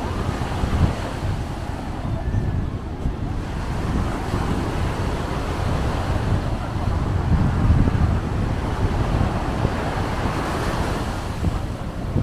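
Wind buffeting the microphone in uneven gusts, over a steady rushing background noise.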